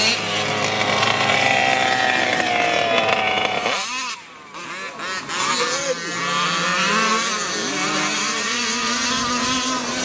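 Small two-stroke RC car engine, an OBR Hybrid 34 with a reed-valve crankcase, running at high revs with its pitch falling slowly. After a sudden cut about four seconds in, RC car engines rev up and down in quick swoops as the throttle is worked.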